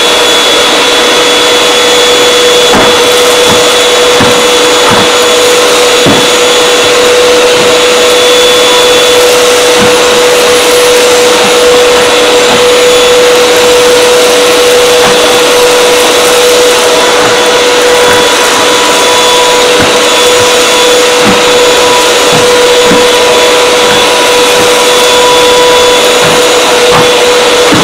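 Canister vacuum cleaner running steadily, its floor nozzle pushed back and forth over carpet tiles: a steady motor hum with a high whine above the airflow hiss, and a few soft knocks.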